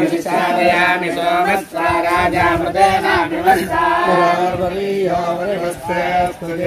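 A group of male voices chanting Vedic mantras together in a steady, sing-song recitation, with short pauses for breath.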